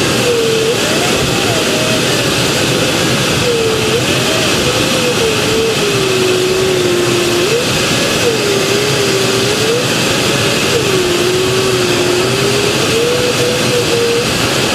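Air rushing over a glider's canopy, with the electronic variometer's continuous tone sliding up and down in pitch as the climb rate changes.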